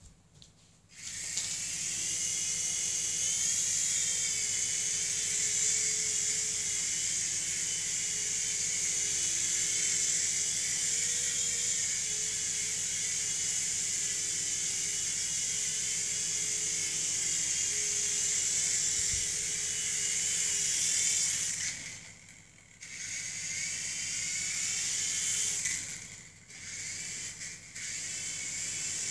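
Battery-powered Revell Roxter toy RC helicopter's electric motors and rotors running with a steady high whir and a wavering whine as the throttle shifts. The motors cut out a little past twenty seconds in, then spin up again in two short runs near the end.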